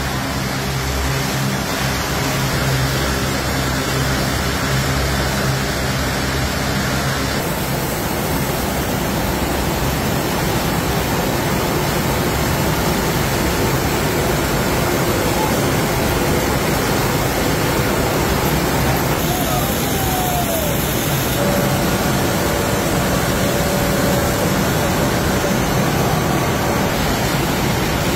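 Jute mill machinery running: flyer spinning frames and yarn winding machines making a loud, steady mechanical din, with a low hum under it at first. The sound changes abruptly about seven seconds in and again around twenty seconds in.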